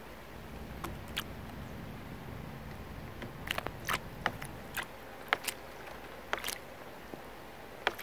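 A female common blackbird wading in a shallow terracotta birdbath. Small, sharp, irregular splashes and drips of water start about three and a half seconds in, over a low, steady background noise.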